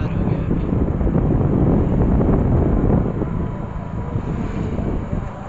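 Wind buffeting the microphone of a moving motorcycle, over the rumble of its engine and the road. The buffeting eases off about three seconds in.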